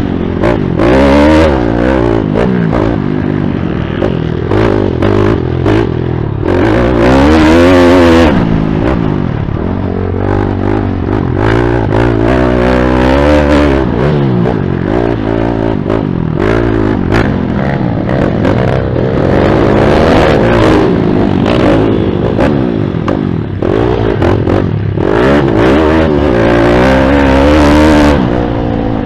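YCF pit bike's single-cylinder four-stroke engine revving hard on the ride, its pitch climbing and dropping again and again through shifts and corners. It is heard from the rider's own helmet camera, under a heavy rushing noise.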